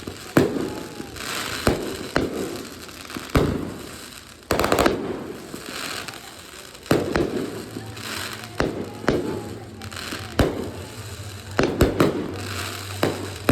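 Aerial fireworks going off: about a dozen sharp bangs at irregular intervals, each trailing off in an echoing rumble and a crackle, with a quick cluster of bangs near the end.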